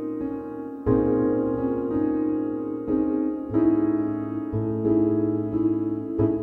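Background piano music: slow chords, a new one struck every second or two, each ringing and fading.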